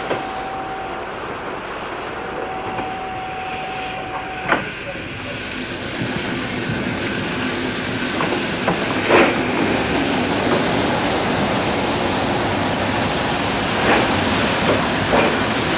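An electric-hauled passenger train running through a station. For the first four seconds or so there is a steady tone. Then the rumble of the wheels grows louder, with sharp clacks over the rail joints.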